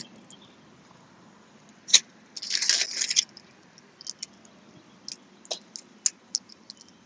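Boiled crawfish shells cracking and snapping as gloved hands twist and peel them: scattered sharp clicks, with a longer crackling stretch just before the middle.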